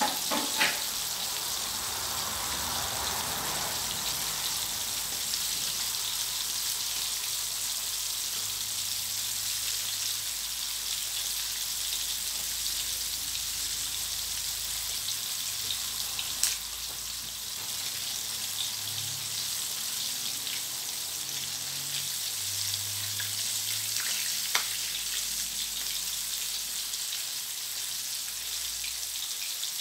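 Flour-coated chicken wings deep-frying in hot oil in a steel wok: a steady sizzle, with a few sharper pops of spattering oil now and then.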